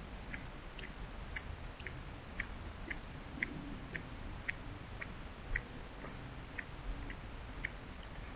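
Footsteps at a steady walking pace: a short sharp click about twice a second, over a low rumble.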